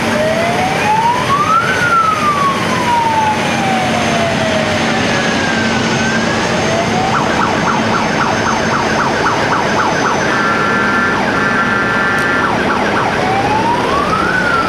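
A vehicle siren wailing in a slow rise and fall. Partway through it switches to a rapid pulsing tone with two short steady blasts, then goes back to the slow rising wail near the end.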